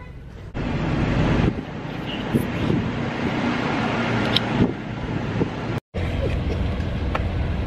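Wind buffeting the microphone over outdoor background noise, with a few faint clicks and a brief total dropout about six seconds in.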